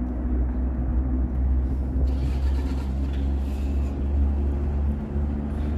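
Steady low rumble of a vehicle's engine and tyres driving through a road tunnel, with a steady hum. A faint hiss joins from about two seconds in.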